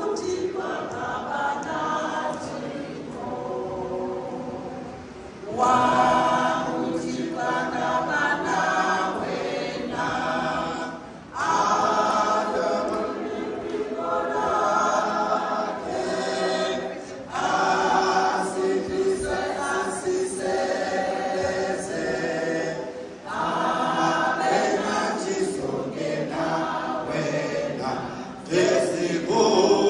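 A large congregation of women singing a hymn together from hymnbooks, in phrases of about six seconds with a brief breath between each.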